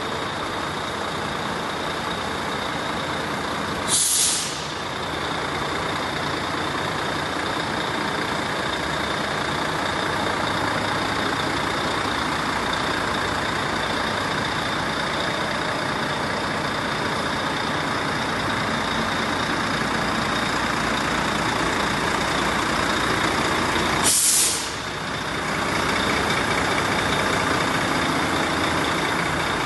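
Volvo FH12 460 tractor unit's D12D diesel engine idling steadily, with a short sharp hiss of compressed air escaping from its air system twice, about four seconds in and again about twenty seconds later.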